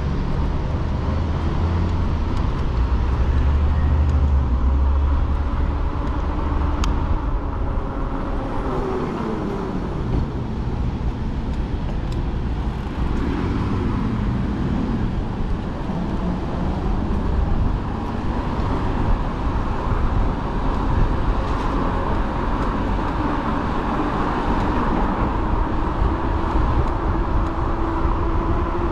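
Road noise while riding a fat-tire e-bike: tyre hum and wind on the microphone, with a heavy low wind rumble in the first five seconds. A vehicle's pitch falls as it passes about eight to ten seconds in.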